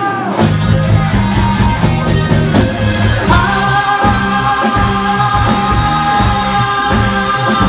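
Live rock band playing an instrumental passage with a driving bass and drum beat, electric guitar and keyboards. About three seconds in, a sustained organ chord comes in and is held steady over the rhythm.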